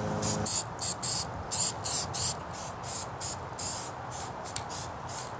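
Aerosol can of satin black spray paint hissing in short repeated bursts, about a dozen, loudest in the first half and fainter toward the end. A low steady hum cuts off about half a second in.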